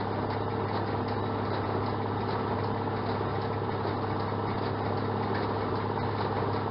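Farmall 806 tractor engine running steadily while driving a New Holland 565 square baler, a constant low hum with no change in pitch.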